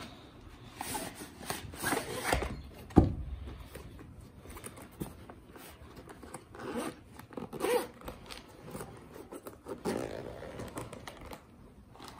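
Zipper of a hard-shell action-camera carrying case being pulled open in several short runs, amid handling of the cardboard box and case, with a single sharp knock about three seconds in.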